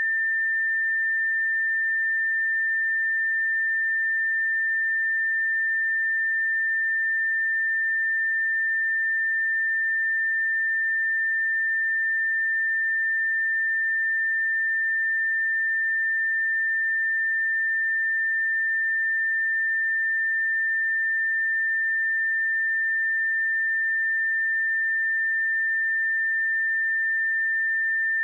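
A steady, pure 1793 Hz sine-wave test tone, held at one pitch and level without a break.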